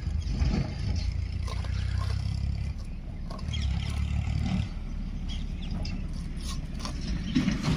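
Dry chickpea stalks and pods rustling and crackling as a hand moves through them, over a steady low rumble that swells and eases a couple of times.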